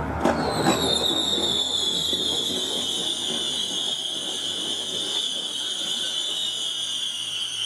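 A whistling firework, played at half speed: two sharp pops near the start, then one long, high whistle that slowly falls in pitch.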